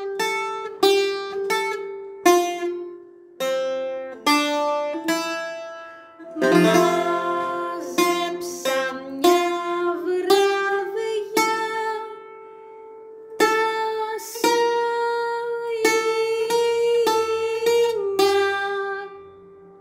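Greek bouzouki picked with a plectrum, playing a melody phrase in the Sabah mode: single picked notes ring out one after another, with a stretch of rapidly repeated strokes about six and a half seconds in. The playing dies away near the end.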